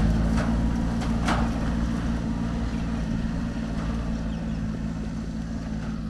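Small Japanese kei truck's engine running at a steady pitch as the truck pulls away, gradually fading.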